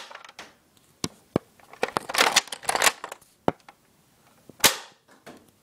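Modded Nerf Longstrike dart blaster being worked by hand: plastic clicks and clattering as the bolt is racked, then one sharp bang about four and a half seconds in as it fires. The bang is the spring plunger slamming forward unimpeded, loud because the air restrictor has been knocked out of the barrel.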